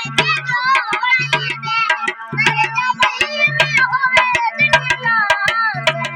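Rajasthani folk music: a melodic line that bends and wavers in pitch over quick, busy hand-drum strokes and a low note that comes and goes in a repeating pattern.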